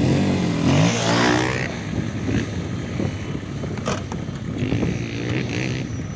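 Off-road 4x4's engine running, its pitch rising and falling in the first second and a half and again near the end, with a single sharp knock about four seconds in.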